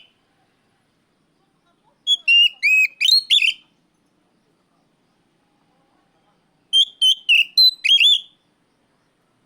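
Oriental magpie-robin (kacer) singing its loud challenge song: two phrases of rapid, clear whistled notes, each about a second and a half long, the second starting about four seconds after the first ends.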